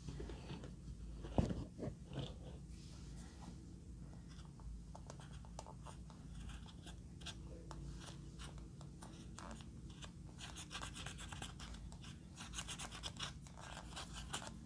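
Pressed eyeshadow being scraped and crumbled out of a palette pan with a small tool: a dry scratching made of many small clicks, thickest near the end. One sharp knock comes about a second and a half in.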